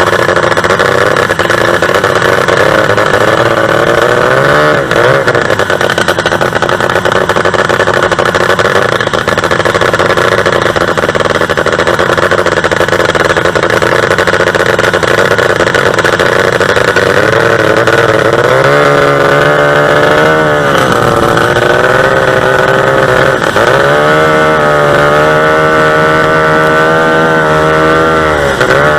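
Two-stroke racing boat engine running hard at high revs, its pitch dropping briefly and climbing back about five times, mostly in the second half, as the throttle is eased and reopened.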